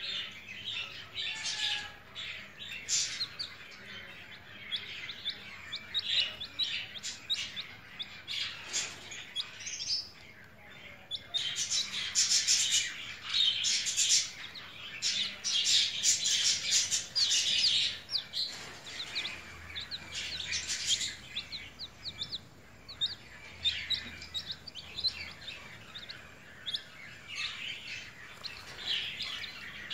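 A group of chicken chicks peeping: many short, high chirps overlapping one another, thickest from about a third of the way in to just past halfway.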